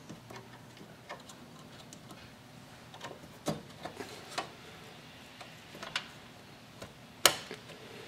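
Scattered small clicks and taps of an OCZ RAM stick being worked into a motherboard memory slot, with one sharp snap near the end as the slot's retention clip latches and the module seats.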